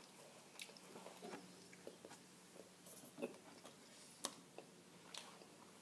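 Faint chewing of a filled sweet, with scattered small mouth clicks and smacks.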